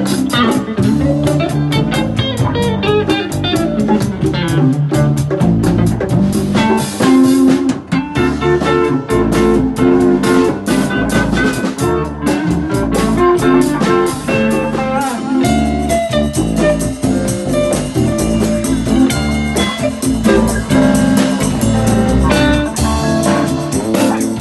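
Instrumental jam: guitar playing melodic lines over a drum kit.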